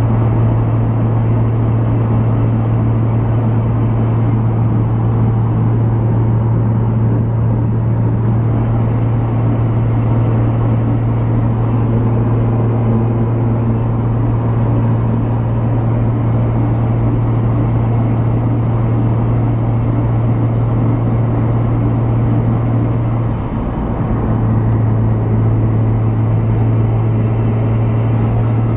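Mitsubishi 3000GT VR4's twin-turbo V6 and road noise droning steadily inside the cabin while cruising, with a brief dip in the drone about three-quarters of the way through.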